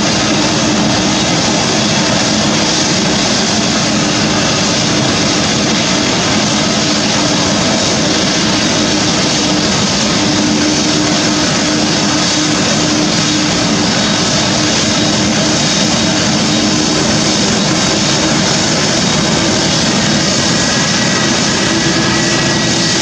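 Airbus A380 jet engines running, a loud steady rushing noise with a steady low hum underneath.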